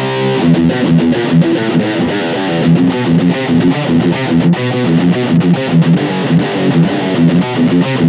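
Schecter Reaper 6 six-string electric guitar with a Sustainiac pickup, played as a fast picked melodic lead line. A note rings on briefly at the start before the run of quick notes.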